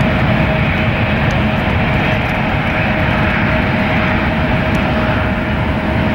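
Jet airliner engines running with a steady whine over a dense rumble.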